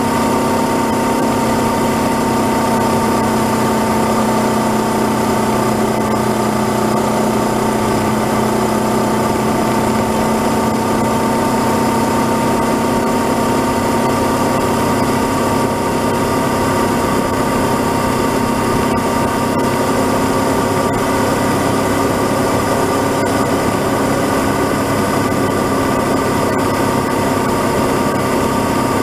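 Honda CB500X's parallel-twin engine running at a steady cruise, with wind rush on the helmet-mounted camera's microphone. The engine note drops slightly a few seconds in, then holds steady.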